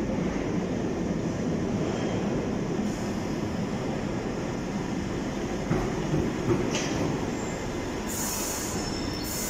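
London Underground Piccadilly line 1973 Stock train running into the platform of a deep-level tube station with a steady rumble and wheel squeal. Bursts of high hissing come near the end as it slows alongside.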